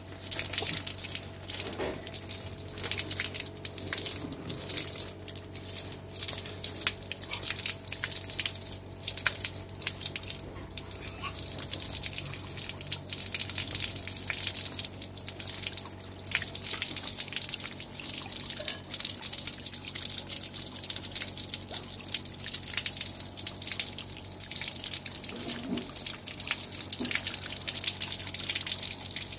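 A stream of water pouring onto a water-filled balloon held in cupped hands, splashing off its rubber surface and dripping and spattering down, with a steady low hum underneath.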